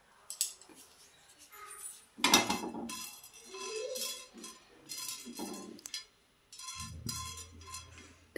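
A spoon clinking and scraping in a metal kadhai as whole black peppercorns and cloves are dry-roasted, the spices rattling against the pan, with the loudest clatter about two seconds in.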